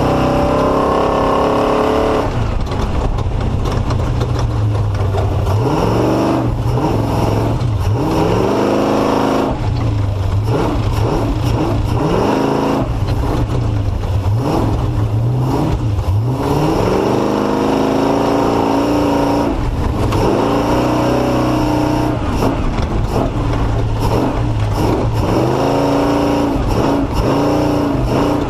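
Off-road race vehicle's engine revving up and down repeatedly as the throttle is worked on and off through a slow, tight, rocky section, its pitch rising and falling every few seconds over a steady low drone.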